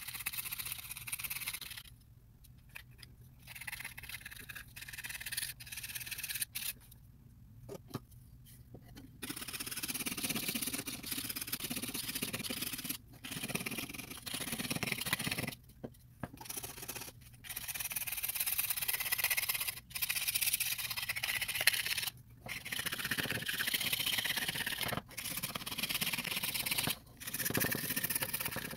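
A knife blade scraping the cosmoline-soaked surface off a wooden Lee Enfield stock piece, in repeated strokes broken by short pauses. The scraping gets louder from about ten seconds in.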